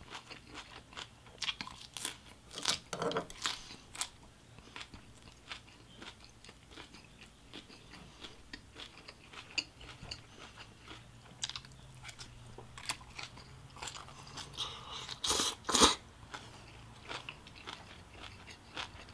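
A person chewing and crunching fresh leafy food close to the microphone: irregular wet crunches and mouth sounds, with a louder pair of crunches about three seconds before the end.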